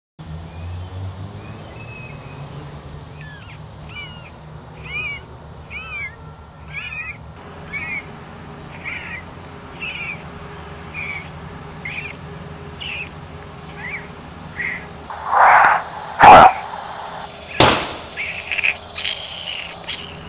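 Short chirping calls that bend in pitch, about one a second, over a low steady hum. Near the end come a few louder sudden noises, the loudest of them about three quarters of the way through.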